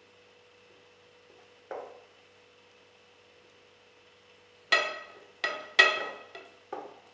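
Glass preserving jar knocking and clinking as aubergine slices are pressed into it by hand: one dull knock, then four short ringing clinks close together near the end.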